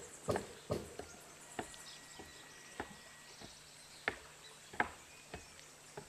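Footsteps climbing wooden stairs: about ten short knocks of boots on the wooden treads, a little under two a second.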